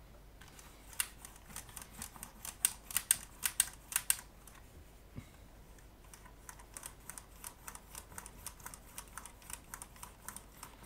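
A run of small, sharp clicks and taps from hands handling the opened Sochor DRX 85 rackmount delay, its knobs and metal chassis. The clicks come fast and irregular and are loudest in the first few seconds, then, after a short lull, go on lighter at about three or four a second.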